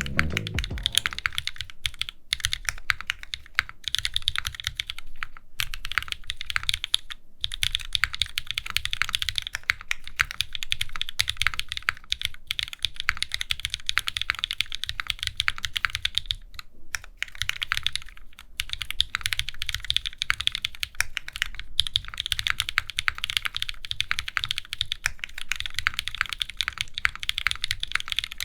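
Fast, continuous typing on a Wilba.Tech Salvation custom mechanical keyboard, a tray case with a spring-leaf mount: a dense run of keystroke clacks, broken by a few short pauses.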